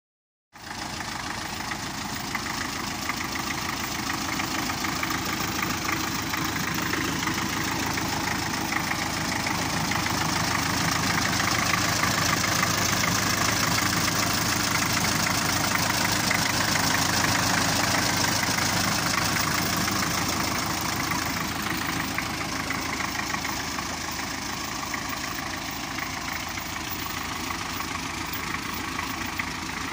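MTZ-52 tractor's four-cylinder diesel engine idling steadily. It grows gradually louder toward the middle and eases off again.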